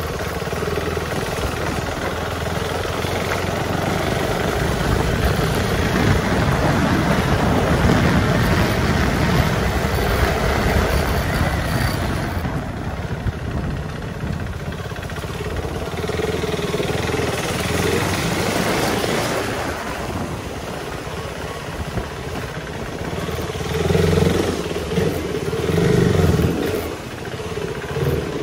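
Motorcycle engine running as the bike is ridden slowly, heard through a helmet-mounted phone's microphone with a steady rush of noise over it. The engine swells twice near the end.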